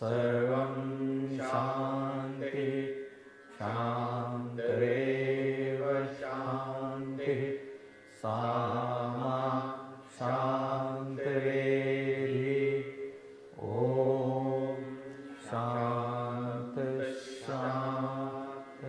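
Vedic Sanskrit mantra chanted by voices together in long held phrases, with short pauses for breath every few seconds, as the closing prayer of a Havan.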